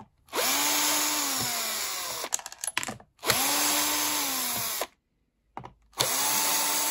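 Cordless drill-driver backing out screws from a hand dryer's housing: three runs of about two seconds each, the motor winding up, sagging slowly and winding down each time, with small clicks in between.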